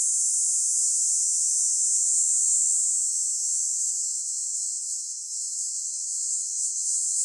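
Cicadas buzzing: a steady, high-pitched, unbroken drone.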